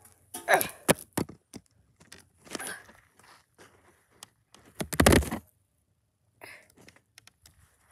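Handling noises as toy figurines are moved over a metal bucket and stone: a couple of sharp clicks about a second in and a loud thump with a deep rumble about five seconds in, which sounds like the microphone being bumped. A short falling vocal sound comes near the start.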